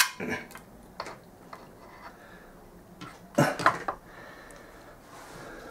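Metal clinks and knocks from motorcycle engine crankcase parts being handled and fitted together, a sharp one at the start and a quick cluster a little after three seconds in.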